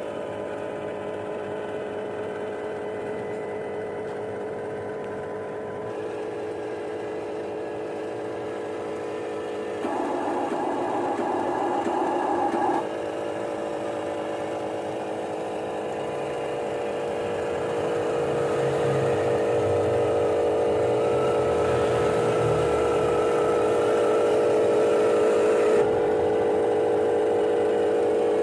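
Steady whine of radio-controlled construction models' electric motors and hydraulic pump. It swells for a few seconds about ten seconds in, builds louder through the second half, and drops suddenly near the end.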